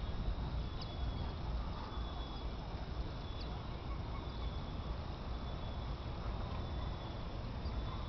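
Low, steady rumble of wind buffeting the camera microphone outdoors, with faint thin high-pitched tones in the background and a couple of faint clicks.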